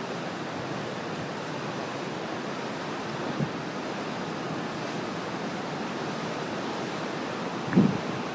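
Ocean surf breaking on rocks along the shore, a steady rushing wash, with wind on the microphone. Near the end there is a short, louder low bump.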